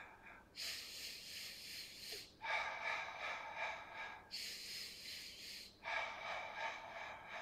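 A man breathing loudly and deliberately during a Pilates exercise: about four long breaths of roughly a second and a half each, alternating in and out, paced to the exercise.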